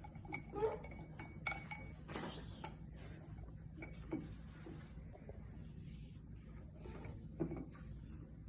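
Faint clinks and light taps of a cup and a plastic HiccAway drinking device being handled while a small child sips water through it, with a short noisy sip about two seconds in.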